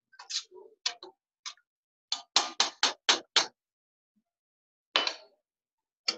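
Metal cooking utensil clinking against a stainless-steel pot as pasta is stirred in sauce: a few light taps, then a quick run of about six sharp knocks in just over a second. Two more clatters follow near the end as utensils and dishes are set down.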